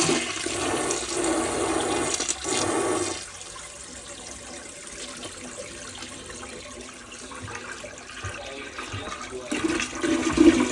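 1971 Crane Radcliffe toilet flushing with the handle held down: a loud rush of water for about three seconds, then quieter steady running water as the ball cock fill valve refills the tank, growing louder again near the end.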